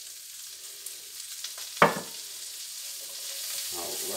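Chopped onions sizzling in melted butter in a cast iron skillet as they are stirred with a spatula. One sharp knock about two seconds in, and the sizzle grows louder toward the end.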